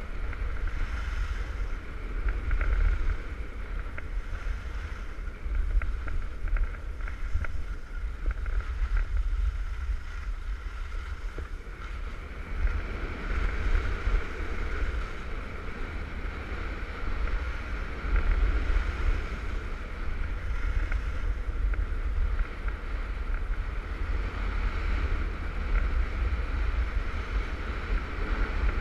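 Wind buffeting an action camera's microphone while skiing down a groomed piste, a steady low rumble that swells and fades with speed, over the hiss of skis running on the snow.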